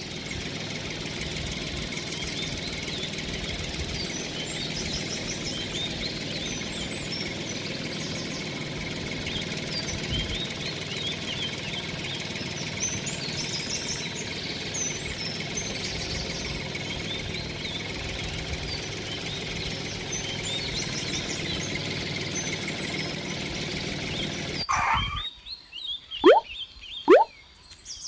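A tractor engine running steadily, with birds chirping over it throughout. About three seconds before the end the engine sound stops, and a few quick rising whistles and sharp knocks follow.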